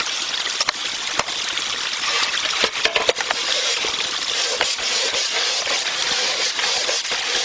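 Water trickling steadily, with metal bowls clinking and knocking against each other and a wooden plank as they are handled for washing; the sharpest knocks fall a little before a second in and in a cluster around three seconds in.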